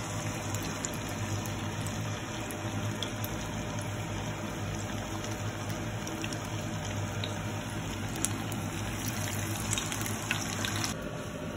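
Chicken vadai deep-frying in hot oil in a pan: a steady sizzle of bubbling oil with scattered small crackles, over a low steady hum.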